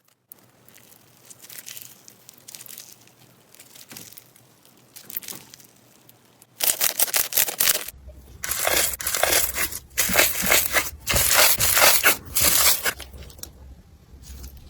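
Slime being squeezed and pressed by hand, giving a crackling, crunching sound: soft and sparse at first, then loud and dense from about halfway.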